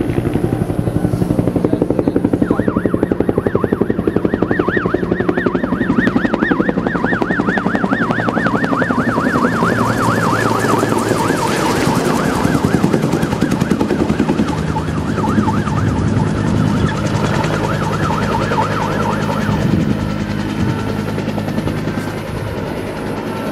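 A helicopter passing low overhead, its rotor blades beating rapidly and steadily, then moving off. Over it, a siren warbles quickly up and down from a few seconds in until near the end, then fades out.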